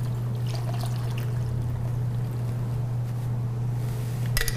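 Milk poured into a blender jar of chopped vegetables over a steady low hum, then a short clatter of a dish being handled near the end.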